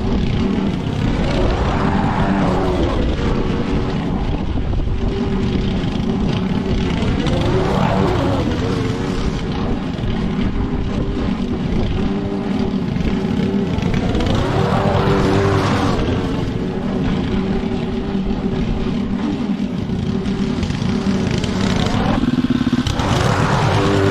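Petrol lawn mower engine running steadily while cutting grass, its sound swelling in a sweep every six or seven seconds.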